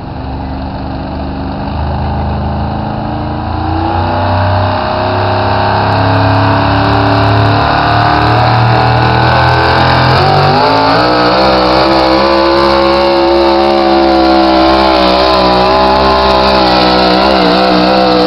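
Modified 4x4 pulling truck's engine at full throttle dragging a weight-transfer sled. The engine note climbs steadily and grows louder over the first several seconds, then holds at high revs with a wavering pitch for the rest of the pull.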